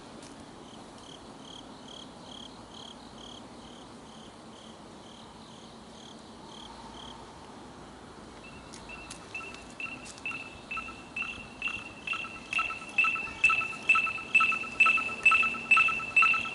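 Lime shared electric scooter's locate (ring) alarm beeping: faint, quick, high chirps at first, then from about halfway a louder repeating beep, roughly two a second, that keeps getting louder.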